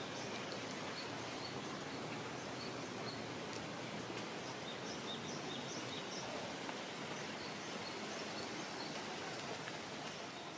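Outdoor nature ambience: a high, pulsing insect trill and scattered short bird chirps over a steady hiss, fading out at the end.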